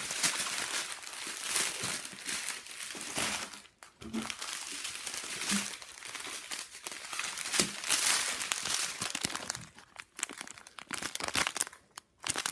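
Small plastic zip-lock bags of diamond-painting drills crinkling and rustling as they are handled, in a continuous run of crackles that pauses briefly about four seconds in and again near the end.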